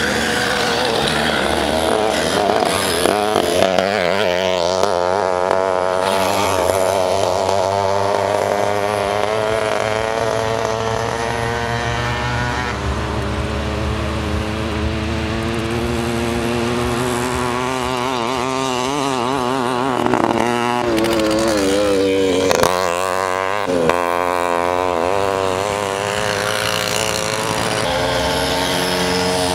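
Small moped engines running at high revs, their pitch rising, falling and wavering. The sound dips briefly about two-thirds of the way through.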